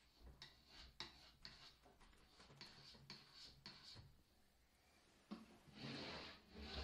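Faint scrapes of a metal putty knife spreading wood putty into gaps along the edges of a Baltic birch plywood box, a short stroke about every half second. A longer, slightly louder scrape comes near the end.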